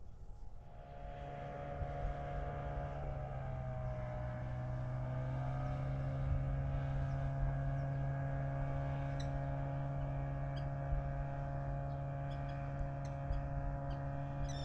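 A motor engine running with a steady hum that swells over the first few seconds. Its pitch dips slightly a few seconds in, then holds steady.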